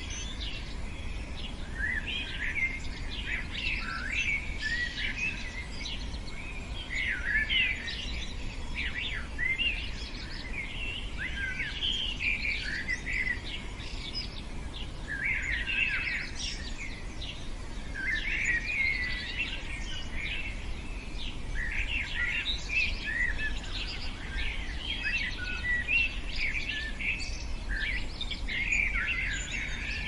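Many small birds chirping and singing at once in a dense, continuous chorus of short, quick, overlapping notes.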